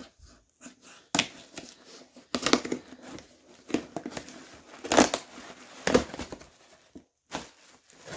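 A small blade slitting the tape on a cardboard shipping box, then the cardboard flaps being torn and pulled open, in irregular scratchy bursts with a few sharp loud rips.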